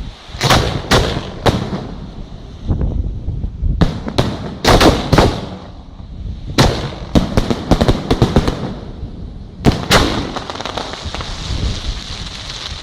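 Aerial firework shells bursting: many sharp bangs in quick clusters, some echoing. Near the end comes a longer crackling hiss.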